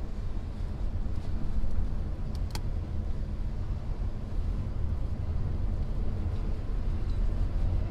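Steady low rumble of a car driving slowly in town traffic: engine and tyre noise. A single short click about two and a half seconds in.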